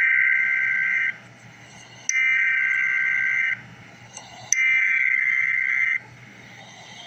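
Emergency Alert System SAME header: three bursts of digital data tones, each a little over a second long, with about a second between them. They mark the start of an EAS alert and carry its coded origin, event type and affected area.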